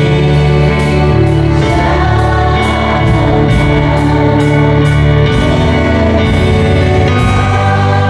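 Live gospel praise music: an electronic keyboard playing chords over bass, with a steady beat of cymbal strokes.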